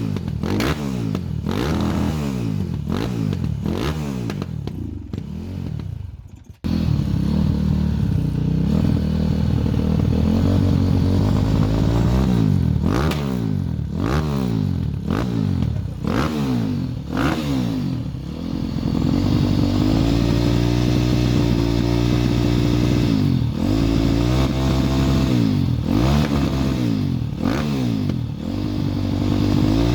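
KTM 530 EXC single-cylinder four-stroke enduro motorcycle engine revving hard, its pitch rising in quick repeated sweeps. About six and a half seconds in the sound breaks off abruptly and returns louder and steadier, with slower rises and falls in engine speed.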